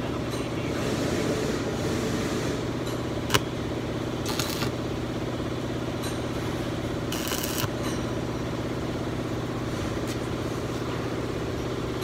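Steady mechanical hum of machinery running, with a sharp click a little over three seconds in and short bright metallic rattles around four and seven seconds in.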